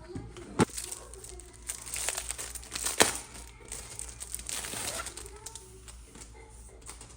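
Packaging being handled and unwrapped, rustling, with two sharp clicks, one just over half a second in and a louder one about three seconds in.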